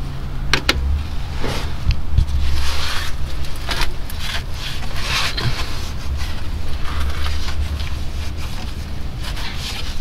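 Rustling and scraping of hands and a rag working over the crankshaft's main journal under the engine, with a few sharp clicks and low rumbling handling noise.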